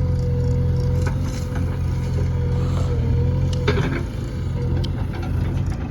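Backhoe loader's diesel engine running steadily, with a thin steady whine and a few sharp knocks, the loudest about two-thirds of the way through.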